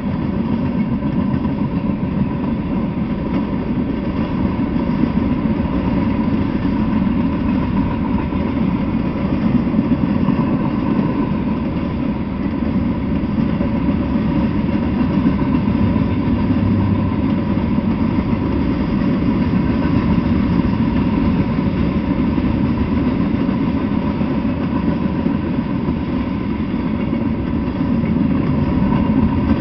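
Freight train cars (boxcars and tank cars) rolling past on the rails: a steady, continuous rumble of wheels on track, with a faint steady high tone over it.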